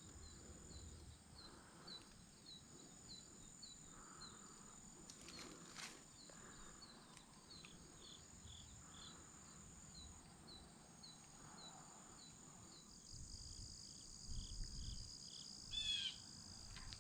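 Faint insects chirping: a regular chirp about twice a second over a steady high trill. A short falling bird-like call comes near the end.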